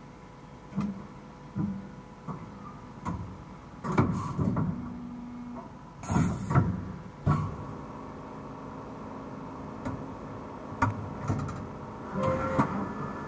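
Stama MC 230/H CNC horizontal machining centre working through its motions: a series of mechanical clunks and knocks over a steady hum and whine, with a sharp hissing clack about six seconds in and a steady whine that comes in around seven seconds.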